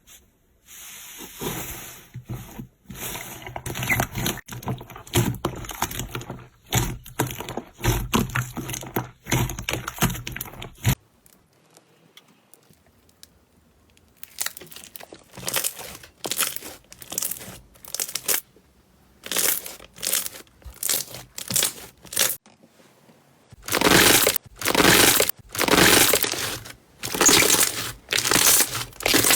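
Slime being squeezed, pressed and poked by hand, giving rapid crackling, popping squishes in three stretches separated by short pauses, the last the loudest.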